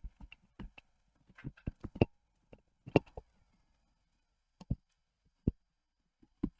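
Irregular keystrokes on a mechanical keyboard with Gateron Orange tactile switches and PBT keycaps: short clacks in a quick cluster at first, then a few scattered single presses.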